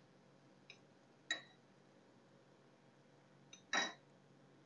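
Two light clinks of a spatula against a flat tawa griddle, each with a brief ring, about a second in and a louder one near the end, each with a faint tick just before it; near silence between them.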